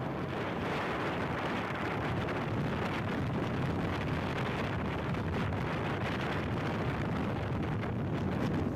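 Steady wind rush over the microphone of a moving motorcycle, with the road and engine noise blended into it.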